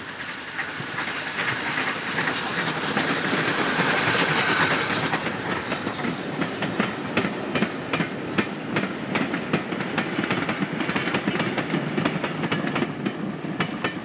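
A steam train passing close by, headed by two small tank locomotives. Its running noise rises to a peak about four seconds in. Then the wheels of the vintage carriages click rapidly over the rail joints as the coaches go by, fading near the end.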